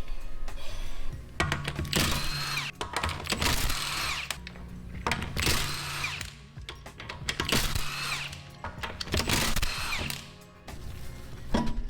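Handheld power tool running in about five short bursts, each roughly a second long, with its pitch gliding as it spins up and down, over background music.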